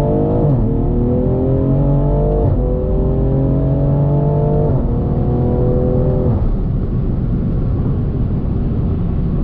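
2020 BMW M340i's turbocharged B58 3.0-litre inline-six, breathing through an aftermarket intake, accelerating hard: engine pitch climbs, drops at upshifts about half a second and two and a half seconds in, climbs again and shifts near five seconds. About six seconds in the driver lifts off and the engine settles to a low steady rumble with road noise.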